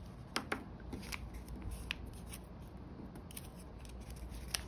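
Hands handling and pressing a folded-paper bookmark on a tabletop: faint paper rustling with a few scattered light clicks.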